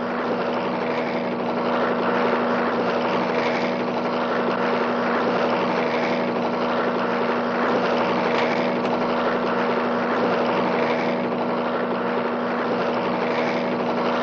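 Steady, unbroken engine drone with a constant low hum.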